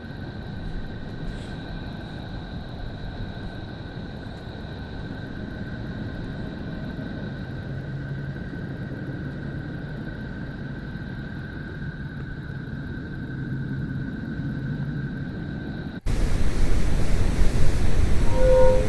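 Space 'planet sound' recording, a sonified spacecraft signal: a steady low rumbling drone with two faint, thin, steady high tones above it. About 16 s in it cuts abruptly to a louder, fuller drone.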